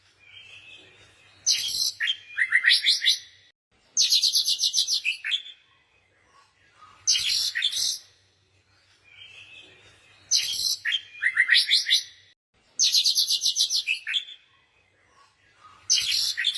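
Songbird singing in short bursts of rapid, high chirps and trills with pauses between them, the same run of phrases repeating about every nine seconds, over a faint low hum.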